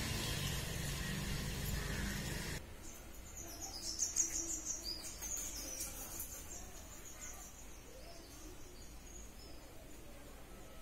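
Steady background hum and noise that drops away abruptly about two and a half seconds in, followed by birds chirping and twittering in high, quick notes for several seconds.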